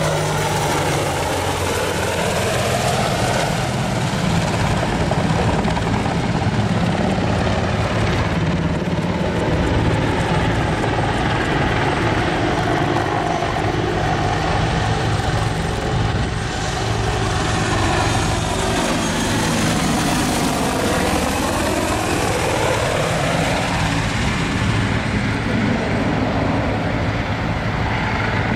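AH-64D Apache Longbow attack helicopter flying low overhead: loud, continuous rotor and twin turboshaft engine noise, its pitch sliding down near the start and dipping and rising again about two-thirds of the way through as it turns and passes.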